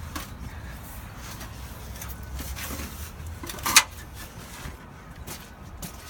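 A low steady rumble with a few light knocks, and one sharp clack a little past halfway.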